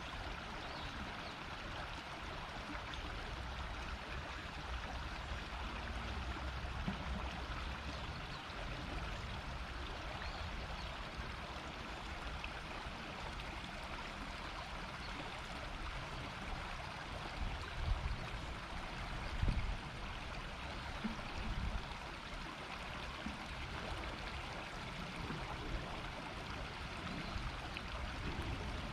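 River running over shallows: a steady murmur of flowing water. A few brief low rumbles rise above it about two-thirds of the way through.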